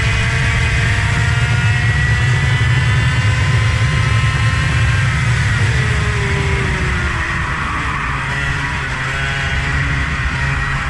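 Vehicle engine running hard at speed under a heavy low rumble; its note drops about six seconds in as it slows.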